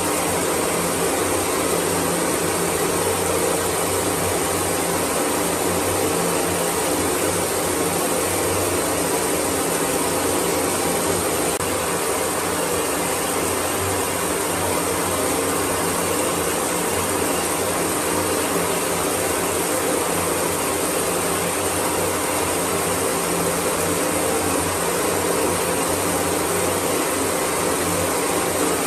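Water spraying from a handheld shower head, a steady, even rush of many fine jets that holds at the same level throughout.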